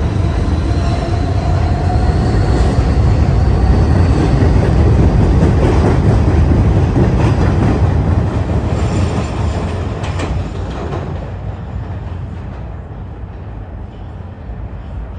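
New York City subway train running along the platform track: a loud rumble of wheels and motors with rail clatter, building to a peak and then fading away over the last few seconds as the train moves off.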